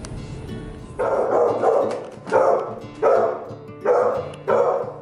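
A dog barking repeatedly, starting about a second in, with one loud bark roughly every 0.7 s, about six in all.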